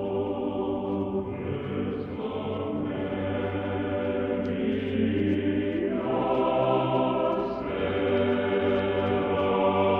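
Orthodox church choir singing slow, sustained chords that change every second or two, on a muffled, narrow-band recording.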